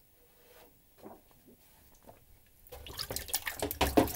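Near silence, then from a little under three seconds in, water sloshing and splashing in a plastic darkroom tray as a freshly fixed print goes into the wash.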